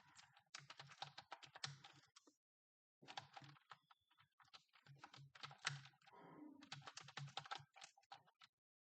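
Fast typing on a computer keyboard: two quick runs of keystrokes, with a short pause about two and a half seconds in, and the typing stops just before the end.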